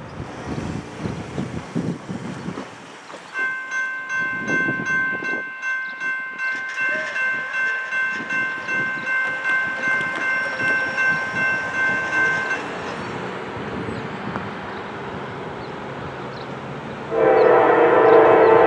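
Grade-crossing warning bell ringing with a quick, even pulse while the crossing gate lowers, stopping about two-thirds of the way through; a car passes over the crossing in the first few seconds. Near the end, the air horn of the approaching Norfolk Southern GE AC44C6M locomotive starts to blow, much louder than anything before it.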